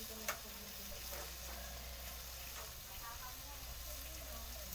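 Chicken pieces with ginger sautéing in a wok over a wood fire: a soft, steady sizzle, with one sharp click about a third of a second in.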